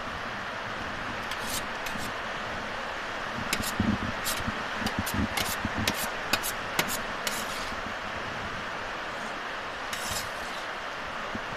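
Person eating noodles: irregular short clicks and wet smacks, bunched from about a second in to past the middle and again near the end, over a steady hiss.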